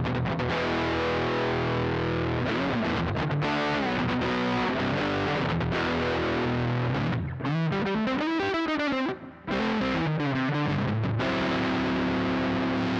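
Electric guitar, a Reverend Pete Anderson PA-1 with P90 pickups, played through a Laney Lionheart L5 Studio amplifier and taken from the amp's direct output. It strums chords, plays a short lead phrase with bent, wavering notes in the middle, and ends on a held chord.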